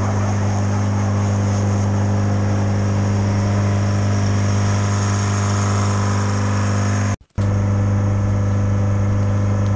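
Diesel engine of a Speed Swing rail loader running steadily under load as the machine pushes snow along the track with its bucket. The sound cuts out for an instant about seven seconds in.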